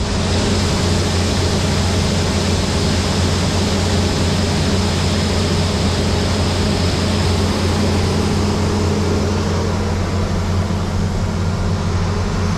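Case IH 2388 combine running steadily while harvesting soybeans: a loud, even drone with a faint high whine.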